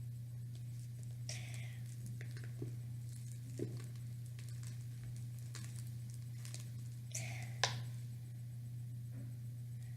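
Sticky fluffy slime, heavy with shaving cream, being stirred with a wooden craft stick, giving a few scattered soft squishes and clicks over a steady low electrical hum.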